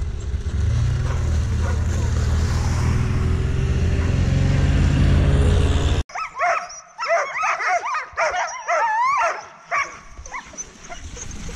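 For about six seconds, a snowmobile engine runs steadily at low pitch. Then, after an abrupt cut, a team of harnessed sled dogs yips, yelps and howls excitedly in quick overlapping calls.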